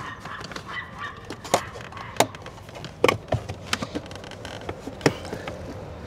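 Car interior plastic trim being worked loose by hand: irregular sharp clicks and knocks of plastic panels and clips, the loudest about two, three and five seconds in, as a stubborn panel is pulled free.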